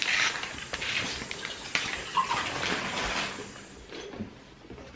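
Crinkly bakery paper rustling as a tray of cakes is handled, with a couple of light knocks; the rustling dies down towards the end.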